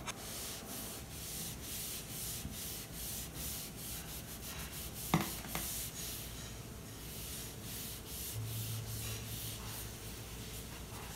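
A cloth wipe rubbed briskly back and forth over a dirty computer keyboard and its edge, in quick even strokes about two or three a second, with one sharp tap about five seconds in.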